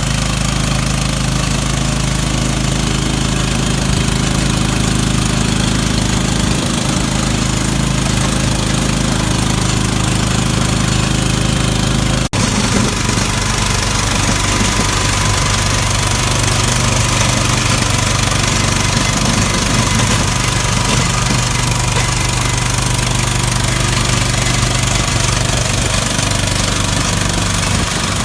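Diesel engine of a digger running steadily under work. It breaks off for an instant about twelve seconds in, then carries on with a slightly different engine note.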